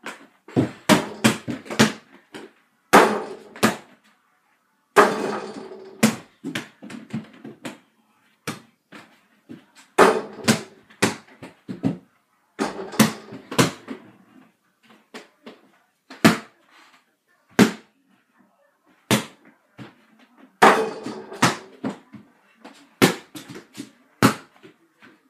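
Small toy basketball bouncing on the floor and striking an over-the-door mini hoop, a long irregular run of sharp knocks that ring briefly in the small room. Some knocks come in quick runs as the ball bounces a few times.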